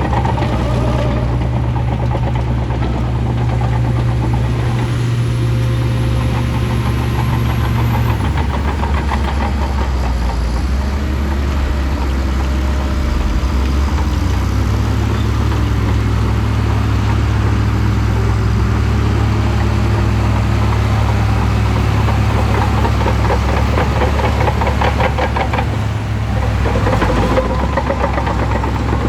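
Shantui crawler bulldozer's diesel engine running steadily while working. Its low engine note shifts about eight seconds in and again about fourteen seconds in as the load changes.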